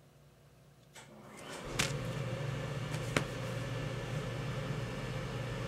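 Steady low hum of background noise that fades in about a second in, after a near-silent start. Two light knocks sound over it, as from record album jackets being handled and set down.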